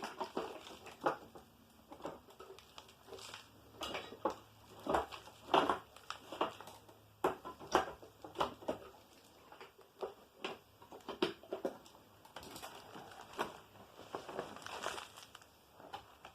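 Irregular clicks, knocks and rustling of old Hoover upright vacuum parts being handled by hand, with the motor off.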